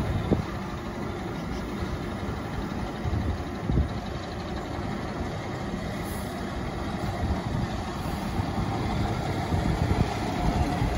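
Heavy fire-apparatus truck engine running as the haz-mat rig pulls slowly out of the station bay, growing louder toward the end as it moves past close by.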